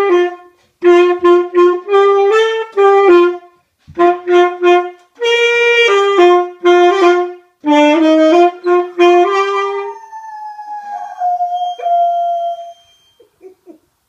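Saxophone playing a melody in short phrases of separate notes, stopping about ten seconds in. A quieter tone then slides down, holds, and fades out.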